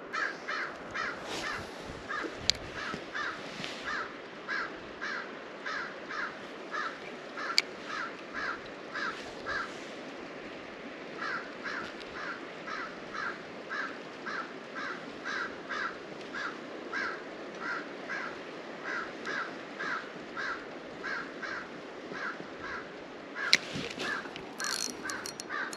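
Repeated short animal calls, about two a second, in two long runs broken by a brief pause near the middle, over a steady background hiss. A few sharp clicks come in between.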